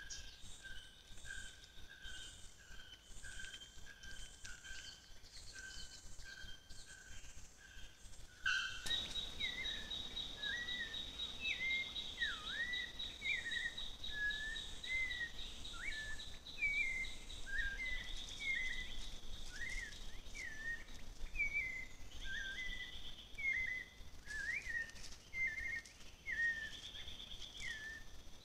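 Forest ambience: at first a short note repeated steadily, then after about nine seconds a steady high insect trill with many short bird chirps that rise and fall.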